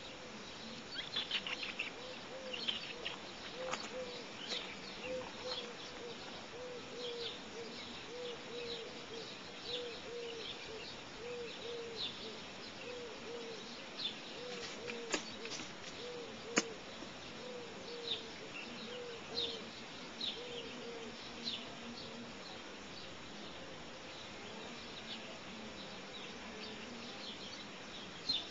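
Outdoor birdsong: small birds chirping with short, high notes, over a low, evenly repeated call that stops about three-quarters of the way through. A couple of sharp clicks sound in the middle.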